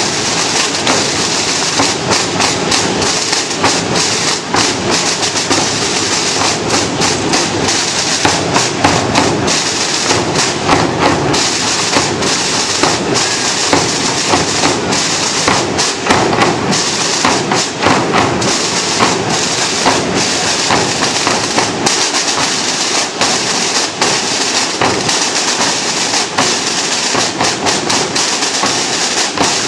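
A drum corps of snare drums and bass drums playing together: a continuous rattle of snare strokes over bass-drum thuds, loud and unbroken.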